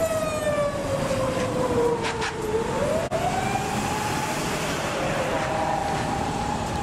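Electronic siren of a Japanese emergency vehicle wailing: the pitch sinks slowly, rises again about three seconds in and then holds, over busy road traffic.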